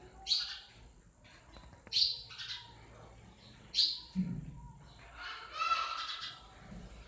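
House sparrows chirping: three sharp single chirps at intervals of about a second and a half to two seconds, then a short run of quicker chatter a little after the middle.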